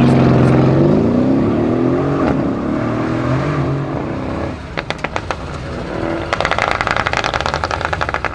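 Tuned Mercedes-Benz CLS63 AMG twin-turbo V8 accelerating hard, its pitch rising with a shift about two seconds in. Then it comes off the throttle with a few sharp pops and a rapid run of exhaust crackles in the second half.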